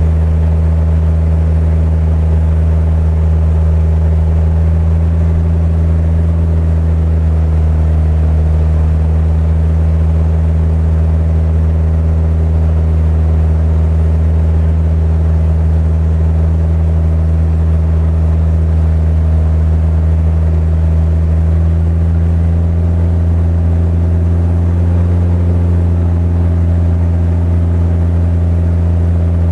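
A river boat's engine running steadily at cruising speed, a loud low drone; its pitch shifts slightly about two-thirds of the way through.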